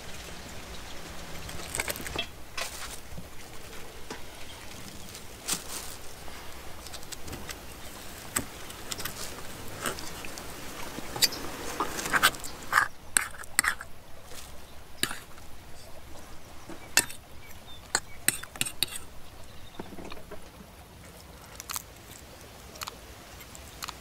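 Metal fork tapping and scraping on an enamel plate as it breaks apart fried fish in sauce: irregular clicks, busiest around the middle.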